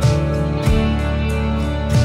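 Instrumental background music led by guitar, with a new chord struck about every two-thirds of a second.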